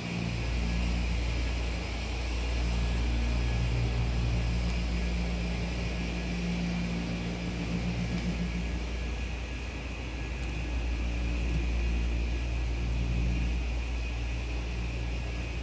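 Steady low rumble with a low hum that swells and fades slightly, with no distinct knocks or events.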